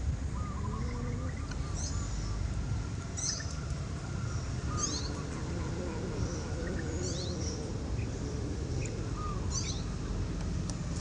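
A small bird chirping again and again, short high notes that sweep downward, one every one and a half to two seconds, over a steady low rumble.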